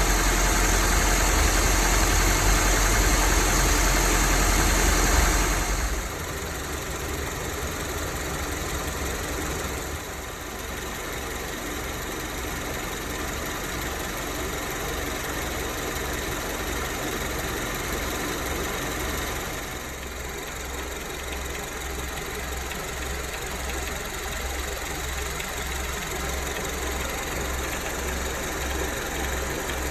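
Honda Civic engine idling with a knock from the hydraulic drive-belt tensioner, which the owner puts down to the ball in the tensioner's damper. Louder for the first five or so seconds, then it settles into a steady idle with an even low pulsing.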